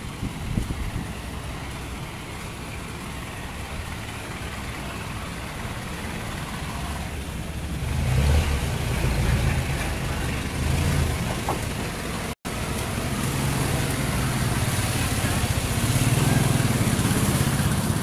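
Street traffic with a road vehicle's engine running close by: a low rumble that grows louder about eight seconds in and then stays steady.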